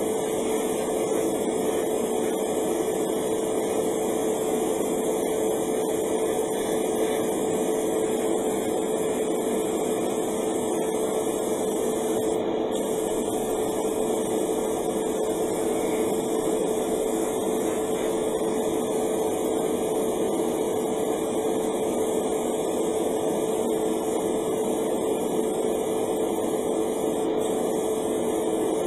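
Cheap airbrush and its compressor running as primer is sprayed: a continuous hiss of air with a steady hum under it, unchanging throughout.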